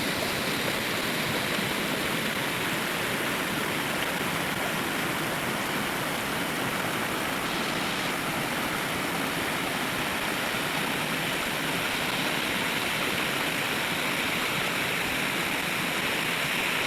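Small waterfall splashing steadily into a rocky gorge, an even, unbroken rush of falling water.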